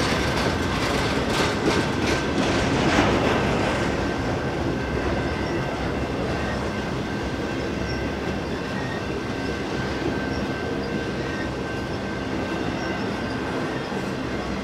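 Container cars of an intermodal freight train rolling past, wheels clacking over rail joints in the first few seconds, then an even rumble carrying a thin, steady high whine.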